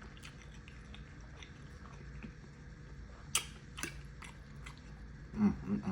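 A person chewing a mouthful of oxtail and rice close to the microphone, with wet mouth clicks and smacks, a few sharper ones in the second half. A brief hum comes near the end.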